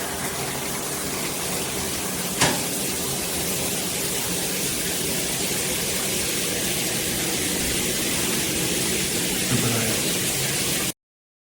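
Water pouring steadily from a square stainless steel rainfall shower head, an even hiss of spray. One sharp click sounds about two seconds in, and the sound cuts off abruptly near the end.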